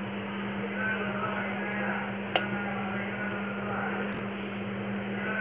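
Steady low hum with one sharp tap on the frying pan about two seconds in, as the slotted spoon and eggs are brought to the pan.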